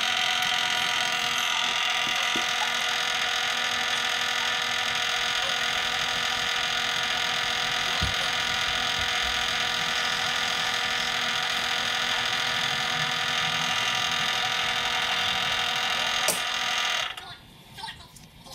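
Mini metal lathe running with a steady, many-toned whine, with a couple of sharp clicks along the way. Near the end it is switched off and the sound drops away abruptly.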